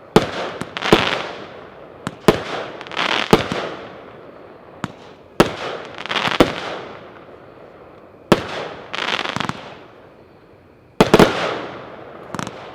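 Shockwave 'Full Charge' consumer firework cake firing shot after shot. A sharp report comes every second or two, sometimes two in quick succession, and each is followed by a burst lasting about a second.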